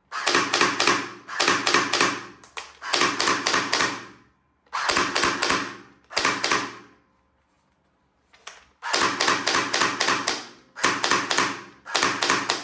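Toy assault rifle firing in short bursts, each a rapid rattle of sharp clicks lasting about a second, repeated about nine times with brief pauses between.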